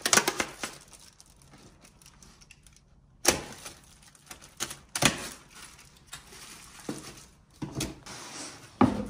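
Cardboard packaging being handled and cut open with a box cutter: paper and cardboard rustling and scraping, broken by several sharp knocks and clicks, the loudest about three seconds in and just before the end.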